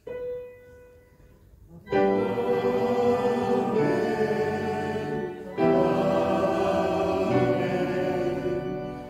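A congregation singing a hymn with instrumental accompaniment. It begins after a single held note that fades out, and the singing comes in full about two seconds in, with a short break about halfway.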